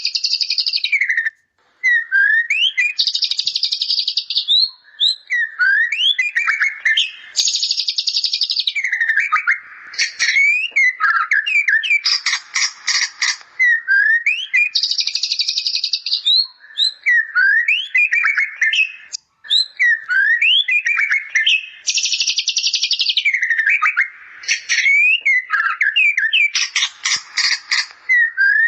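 White-rumped shama singing a song filled with bar-winged prinia (ciblek) phrases: quick rising and falling whistled notes alternate with dense buzzy trills and rattles, the same sequence coming round about every seven seconds.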